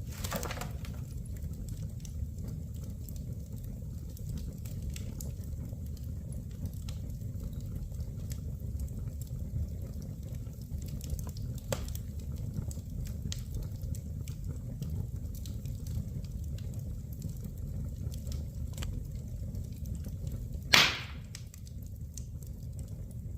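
Wood fire burning in a fireplace: a steady low rumble with scattered small crackles, and one loud sharp pop near the end.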